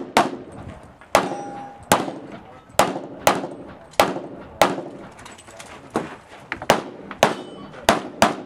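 Semi-automatic pistol fired in a string of about a dozen shots at uneven spacing, roughly one every half to three-quarters of a second, each shot with a short echoing tail.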